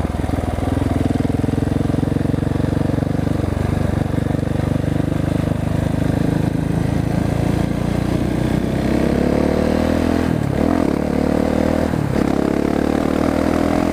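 Husqvarna 701 Supermoto's single-cylinder engine running with its exhaust baffle (dB killer) removed, making a racket under acceleration. The revs climb in the second half and drop sharply twice near the end, as at upshifts.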